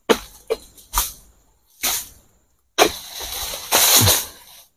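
A long-poled sickle hacking at oil palm fronds: several short sharp cracks, then about three seconds in a longer tearing, rustling stretch of frond.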